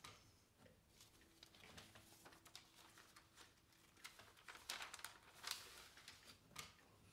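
Quiet rustling and light clicks of paper sheet music being shuffled and turned on a music stand, loudest about five seconds in.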